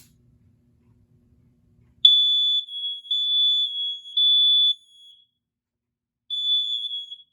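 A smoke alarm set off by aerosol smoke-tester spray sounds about two seconds in: a loud, shrill high-pitched tone in the three-beep temporal pattern, three long beeps, a short pause, then the next group starting. It is the sign that the detector has sensed the test smoke and is working.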